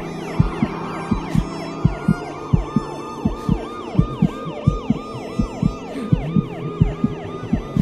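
Siren in a fast yelp, its pitch rising and falling about three times a second, over a low thumping beat in pairs.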